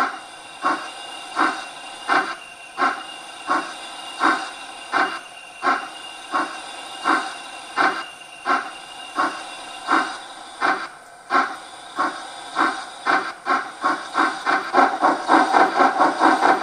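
Sound-decoder steam locomotive exhaust beats from the loudspeaker of a 1:32 DR class 52 model: steady chuffs about 1.4 a second that come faster and louder near the end as the locomotive speeds up. A thin high squeal runs under the chuffs for the first ten seconds or so, the decoder's switchable curve-squeal effect.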